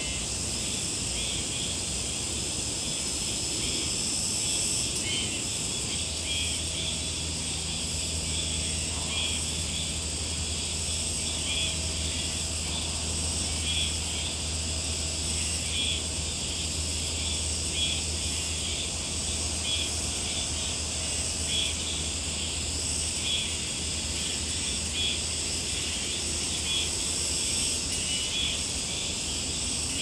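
Summer insect chorus of crickets and other insects: steady high-pitched chirring with a pulsing shimmer. A low steady hum comes in about six seconds in and carries on underneath.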